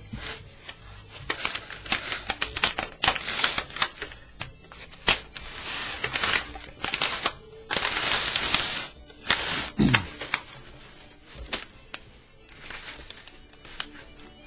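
Irregular metallic clicking and rattling of banjo bracket hooks and hoops being handled, with a few longer scraping stretches.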